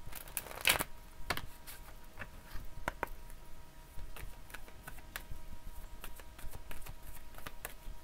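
A deck of cards being shuffled by hand: irregular clicks and flutters of the cards slapping together, with a louder rustle a little under a second in.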